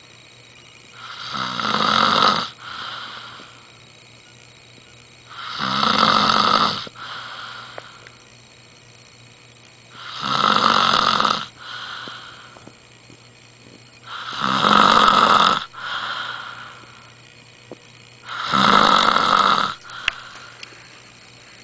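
A sleeping person snoring: five loud snores at a steady rhythm of about one every four seconds, each trailing off into a softer breath.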